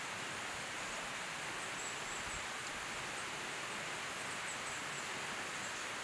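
Mountain valley stream flowing: a steady, even rush of water.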